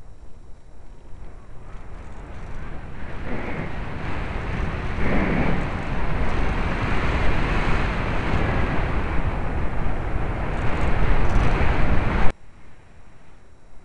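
Rushing air buffeting the microphone of a model aircraft's onboard camcorder as it descends to land, growing louder, then a short bump about twelve seconds in, after which the noise cuts off suddenly as it touches down.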